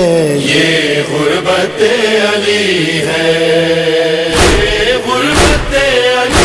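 Unaccompanied voices chanting a slow, sustained lament melody between sung lines of an Urdu noha. About four seconds in, low thumps return at roughly one a second under the chanting.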